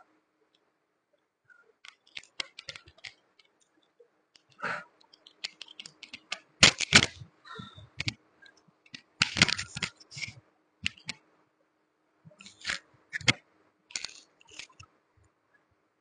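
Irregular rustling, scraping and clicking from a shirt and hands brushing against a clip-on lapel microphone during arm and shoulder stretches, loudest near the middle.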